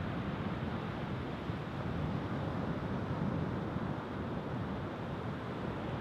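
Sea surf and wind: a steady rushing wash of breaking waves.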